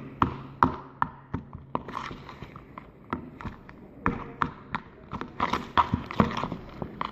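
Freshly made, slightly sticky slime being squeezed and stretched by hand, giving an irregular string of wet clicks and pops.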